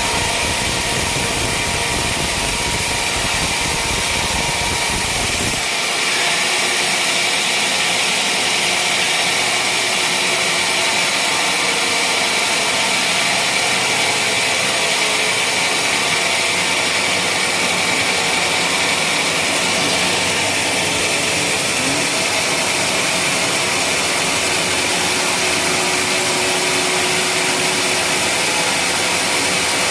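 Wood-sawing machine running steadily, with a constant high whine over a dense mechanical noise; about six seconds in the low rumble drops away abruptly.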